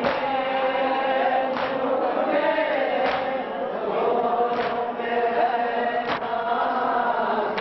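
Group of men chanting a noha in unison, with sharp slaps of hands striking bare chests together (matam) about every second and a half, keeping the beat of the chant.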